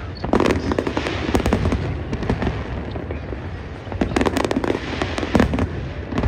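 Aerial fireworks bursting overhead: clusters of sharp bangs and crackle over a steady rumble, with the loudest flurries about half a second in and again around four to five and a half seconds in.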